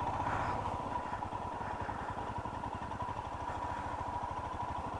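Motorcycle engine running steadily while riding, a fast even pulsing with a steady high whine over it.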